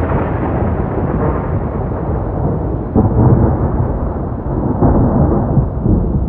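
Loud, low rolling rumble like thunder. It swells about three seconds in and again near five seconds, and grows duller toward the end.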